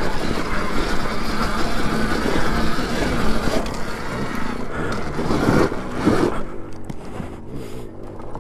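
Alta Redshift MXR electric dirt bike ridden over rough rocky trail: a dense rattling noise of tyres, chain and chassis on the rocks, with two rising-and-falling swells about five and six seconds in, growing quieter and more broken near the end.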